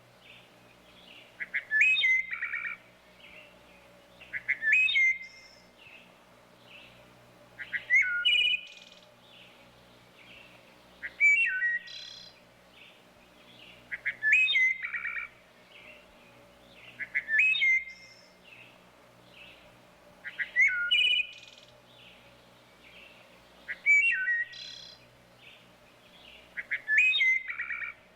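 Wood thrush singing: a short flute-like phrase ending in a high trill, repeated about every three seconds, nine times.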